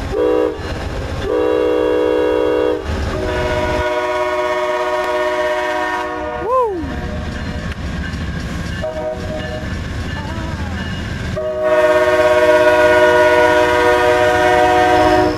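Amtrak P42 locomotive #193's hybrid K5LA air horn sounding its chord in a series of blasts as the train approaches, over the locomotive's low rumble and wheels on the rails. One blast near the middle bends in pitch as it cuts off. The last blast, from a few seconds before the end, is the longest and loudest as the locomotive draws close.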